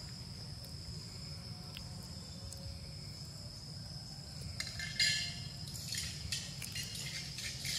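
A steady high insect drone that fades about four and a half seconds in, as close crackling rustles and crunches take over.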